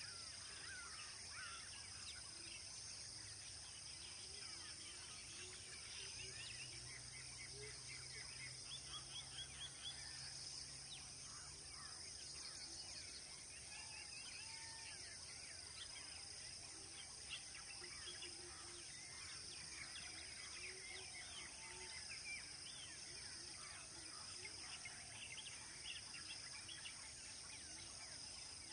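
Faint wild outdoor ambience: many birds chirping and trilling over a steady high-pitched insect drone.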